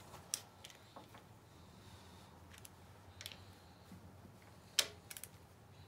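A few scattered light metallic clicks and taps of a hand tool working on the cast-iron thermostat housing as it is fastened to the engine, the sharpest click near the end.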